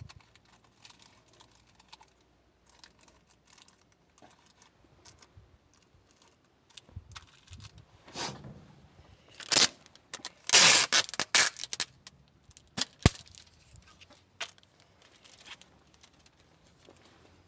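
Rustling, crackling handling noises with scattered clicks, typical of debris and plastic being worked by hand during cleaning of a car's water drain channel. The loudest rustling comes in bursts between about 8 and 12 seconds in, followed by one sharp click.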